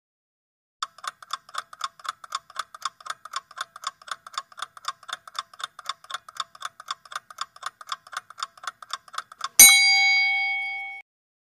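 Countdown-timer sound effect: a steady clock tick at about four ticks a second for nearly nine seconds, then a single bell ding near the end that rings out and fades over about a second and a half, marking time up.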